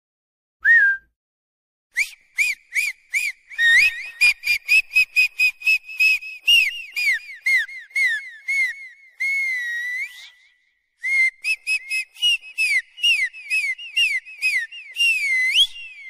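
Rapid high whistle-like chirps, about three or four a second, in runs with short breaks and one longer held note about two-thirds of the way through.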